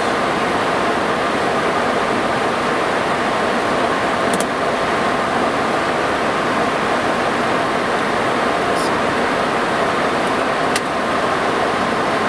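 Steady rushing noise inside an MD-80 airliner's cockpit in flight, with a faint steady tone running under it. Two faint clicks come through, one about four seconds in and one near the end.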